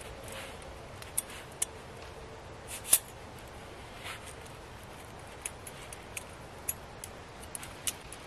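Metal folding grill grate being folded up by hand into a cylinder: scattered light metallic clicks and clinks as its bars and rails knock together, the loudest about three seconds in.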